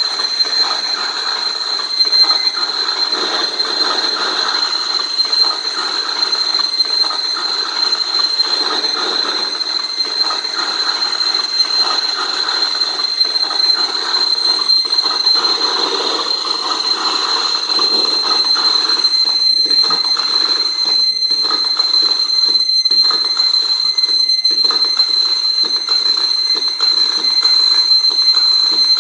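Live amplified noise music: a steady high-pitched whine over a dense, churning wash of distorted noise, with a few brief dropouts in the second half.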